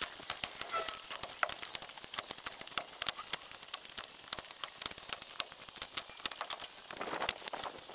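Split firewood being stacked, with the sound sped up twenty times: the knocks of logs set on the pile run together into a rapid, irregular clatter of clicks.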